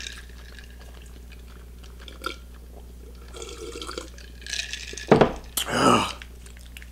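Drinking iced soda from a glass mason jar, with soft sipping and liquid sounds, then a sharp knock about five seconds in as the jar is set down on the wooden table. A short wordless vocal sound follows.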